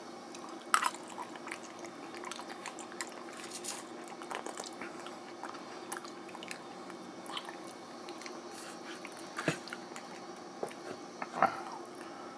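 Close-up eating sounds of microwaved garlic sesame noodles with beef: chewing and wet mouth noises with scattered small clicks and taps, the sharpest about a second in and near the end, over a steady low hum.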